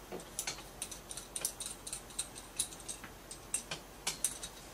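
Small irregular clicks and taps of plastic Glock magazine floor-plate parts being handled and fitted by hand, with the steel magazine spring touched now and then.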